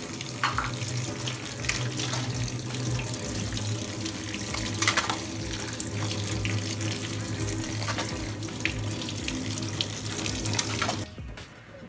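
Cold tap water running into a steel colander of freshly boiled noodles, splashing as a hand tosses them to rinse off the starch. The water cuts off abruptly shortly before the end.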